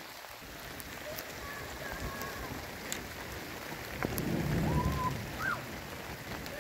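Steady rain hiss with scattered sharp drips, and a low rumble about four seconds in that lasts about a second.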